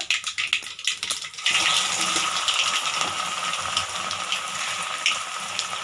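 Mustard seeds crackling and popping in hot oil, then about one and a half seconds in a sudden, steady sizzle as boiled colocasia (taro root) slices go into the oil and start to fry.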